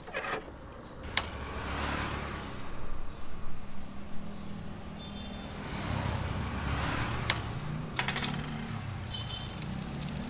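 A vehicle engine running steadily, its note shifting in the second half, with a few sharp clicks and a short run of rattling clicks about eight seconds in.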